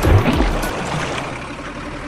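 Background music with a beat stops a little over half a second in, with a couple of low thumps. An even rush of splashing water follows as a toy truck falls into a river.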